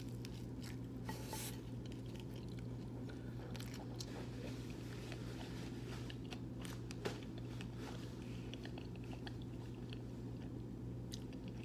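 A person chewing a mouthful of pizza close to the microphone: soft, scattered wet clicks and smacks, one a little sharper about seven seconds in, over a steady low hum.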